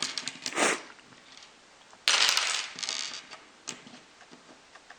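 Small plastic LEGO pieces clicking and rattling as they are handled and sorted, with a louder clatter of pieces about two seconds in.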